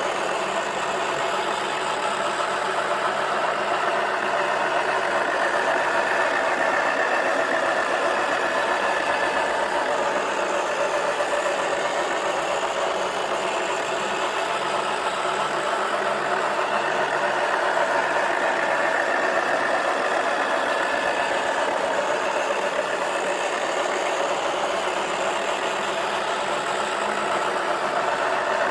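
Small electric motor of a toy washing machine running steadily as its drum turns with a rugby ball inside.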